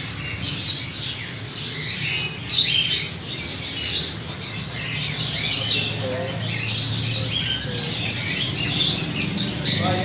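Many caged small parrots, budgerigars among them, chirping and squawking all together in a continuous busy chatter of short, high calls.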